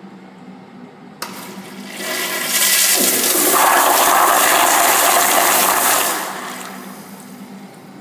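Crane Plumbing Whirlton flushometer toilet flushing: a click about a second in, then a powerful rush of water that swells, stays loud for about three and a half seconds and fades away.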